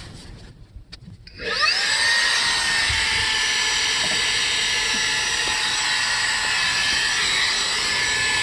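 Xiaomi Mijia handheld cordless vacuum cleaner with a brushless motor, switched on about a second and a half in. It spins up with a rising whine, then runs steadily with a high whine over a rush of air.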